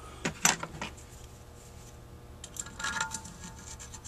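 Small metal parts clicking and clinking as screws with lock washers and a screwdriver are handled on a carburetor body. It comes in two short clusters about two seconds apart, the second with a brief metallic ring.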